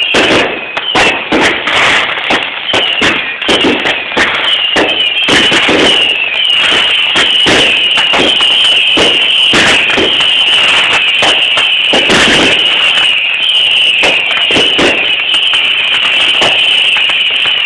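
Consumer fireworks going off: a quick string of bangs and crackles, thickest in the first few seconds, over a shrill high whistle that wavers in short repeated downward swoops.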